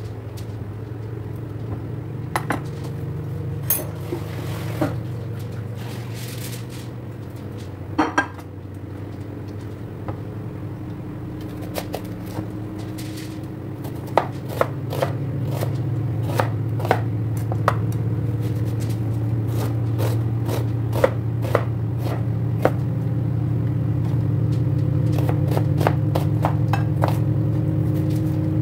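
A knife chopping onions on a plastic cutting board: irregular sharp knocks, a few at first and coming much more often from about halfway through, over a steady low hum.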